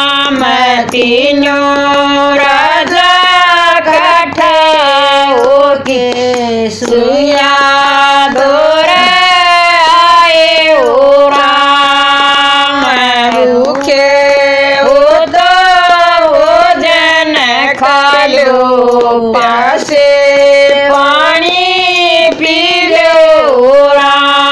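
Women singing a Haryanvi devotional bhajan, the voices holding long notes with sliding pitch between them.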